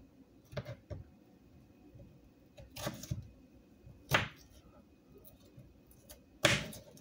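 Knife chopping cucumber on a cutting board: scattered sharp chops a second or more apart, the loudest about four seconds in and near the end.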